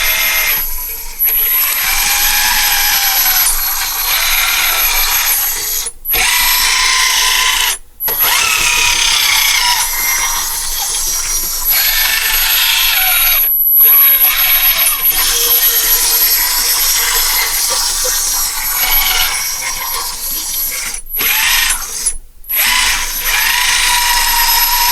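Kabolite K963 1/16 RC hydraulic loader running: its hydraulic pump and electric motors whine steadily as the machine is worked. The pitch wavers with the load, and the sound cuts out briefly about five times as the controls are released.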